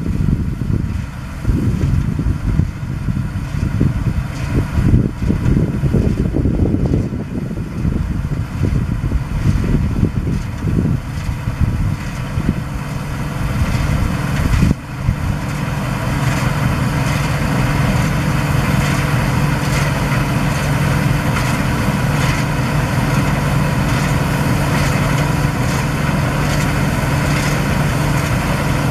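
Claas Dominator 96 combine harvester running, an uneven low rumble at first, then, after a short knock about halfway through, a steady engine hum at a constant pitch.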